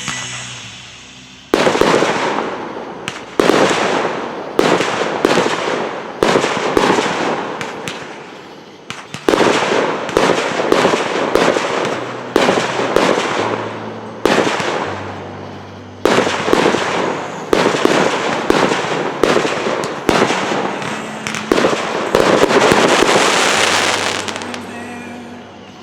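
Fireworks display: a long, rapid series of loud aerial shell bursts, each a sharp bang with a trailing rumble, starting about a second and a half in. Near the end comes a dense stretch of crackling bursts, then the bangs fade.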